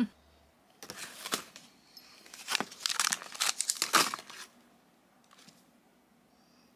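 Plastic treat-stick wrapper crinkling in a run of short, crackly bursts, loudest toward the middle, then stopping about four and a half seconds in.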